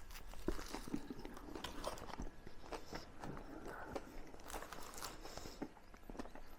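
A person biting into and chewing a Big Mac burger close to the microphone, a run of irregular small mouth clicks and crunches.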